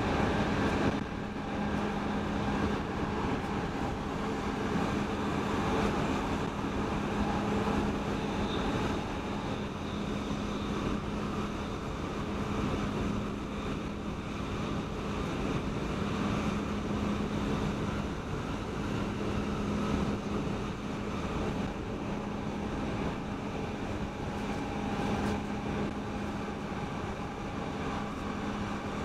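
Cabin noise inside an X10 electric multiple unit running at speed on the commuter line: a steady rumble with a constant low hum.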